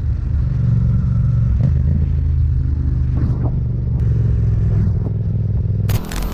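Motorcycle engine running steadily at low revs while the bike slows, with rushing wind noise on a helmet-mounted microphone. Near the end the sound changes abruptly.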